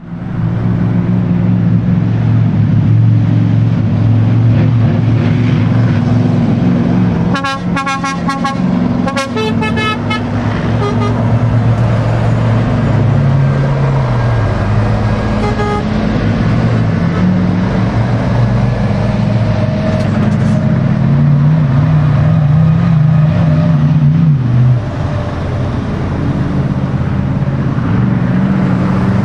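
Heavy lorries driving past in a slow line, their diesel engines running, with an engine note that rises and drops. About eight seconds in, horns sound in several short blasts, with one more brief toot a little later.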